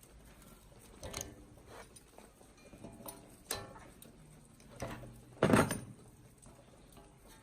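Metal parts knocking and clinking against each other, a handful of separate strikes that each ring briefly, the loudest about five and a half seconds in.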